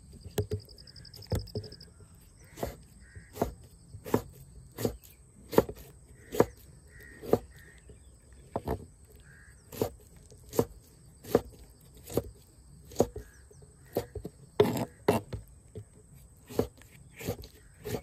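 Kitchen knife slicing tomatoes on a wooden cutting board, the blade knocking on the board in a steady rhythm of about one stroke every 0.8 seconds.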